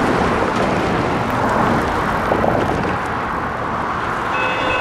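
Cars passing over the crossing, a steady rush of tyres and engines. Near the end, the crossing's electronic bells (a Safetran Type 1 and a General Signals Type 3) start ringing as the signals activate for an oncoming train.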